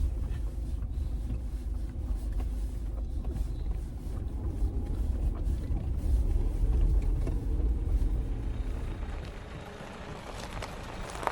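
Vehicle driving slowly on a dirt track, a steady low rumble of engine and tyres that eases off about nine seconds in as it slows.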